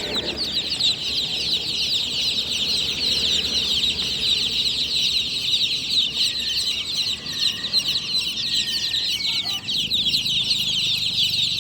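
A large crowd of newly hatched chicks peeping loudly and without a break, many high, short, downward-sliding chirps overlapping.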